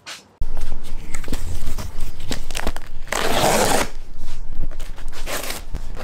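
Box cutter slitting the packing tape along a cardboard box's seam, starting suddenly about half a second in: scraping and rustling of tape and cardboard, with a louder tearing scrape about three seconds in, over a steady low rumble.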